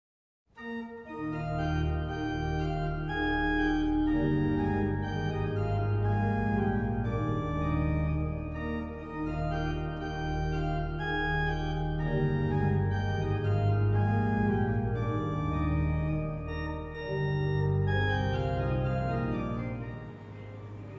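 Organ music: held chords over a moving bass line, the notes changing every second or two, dropping away about twenty seconds in.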